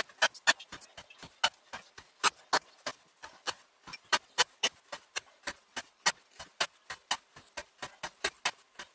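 Toporsib 'Plotnik No. 2' carpenter's axe cutting hemp rope on a wooden block, cut after cut: short sharp knocks about three a second as the blade goes through the rope into the wood. These are the repeated cuts of an edge-retention test, by now some three to four hundred cuts in.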